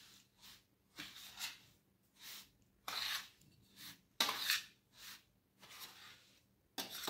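A spatula scraping and turning a dry mix of roasted semolina and powdered sugar around a stainless steel plate, in a string of short rasping strokes about one or two a second.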